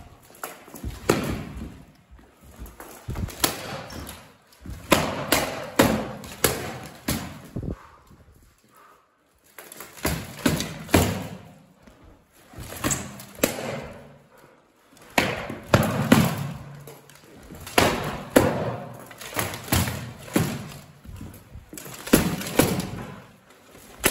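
Padded practice swords striking each other and the fighters' armour in quick clusters of thuds and slaps, with a short lull about eight seconds in.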